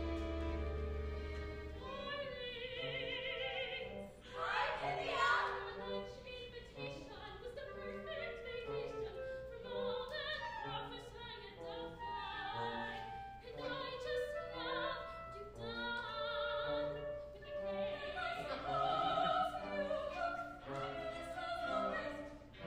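A woman singing opera with wide vibrato over orchestral accompaniment. A held chord opens, and the voice comes in about two seconds in.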